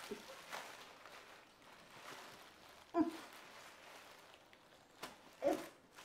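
A black plastic bag rustling and crinkling as hands work at its tied top, with two short vocal sounds, one about three seconds in and one near the end.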